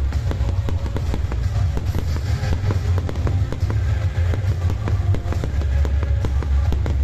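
Fireworks going off in rapid succession, dense cracking bangs from aerial shells and comets, over music played for the show through loudspeakers.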